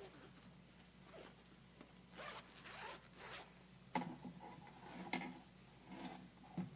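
Hands handling a small case and papers at a lectern, picked up faintly by the lectern microphone: a few rasping rustles about two seconds in, then three soft knocks against the lectern.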